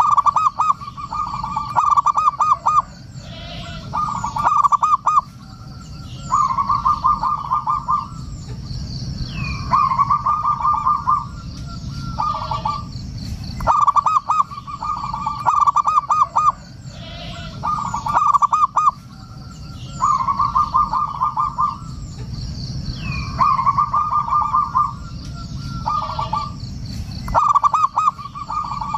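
Zebra dove (perkutut) cooing its song over and over: rapid stuttering phrases of coos, each a second or so long, about one every two seconds. Fainter high chirps sound in the background.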